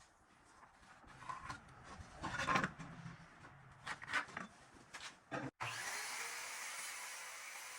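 Wooden boards being handled, rubbed and scraped, with a few short scraping strokes. About two-thirds of the way through, the sound cuts off suddenly and a steady hiss takes over.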